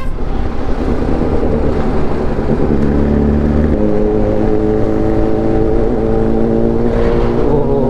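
Motorcycle engine running at a steady road speed under wind rush on a helmet-mounted microphone, with heavy traffic alongside.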